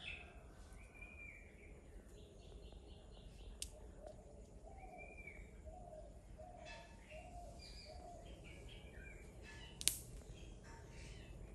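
Faint birds chirping in the background, with a short run of about five repeated calls in the middle. A sharp click comes near the end.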